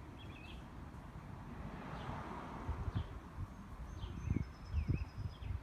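Birds chirping outdoors: short calls that slide downward in pitch, every second or so, with a thin high whistle near the end. A low rumble of wind and handling noise on the microphone runs underneath.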